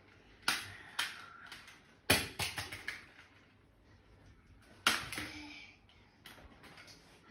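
Sharp clicks and cracks of eating at a table: a single click or two near the start, a quick run of several cracks about two seconds in, and another sharp one about five seconds in.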